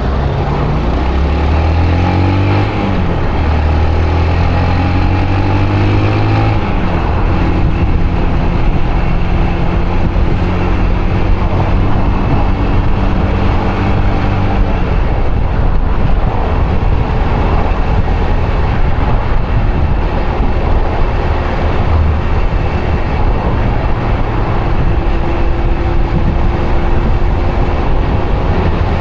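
Yamaha YBR125's single-cylinder four-stroke engine accelerating, rising in pitch over the first six or so seconds, then holding a steady speed. A continuous rush of wind and road noise runs under it.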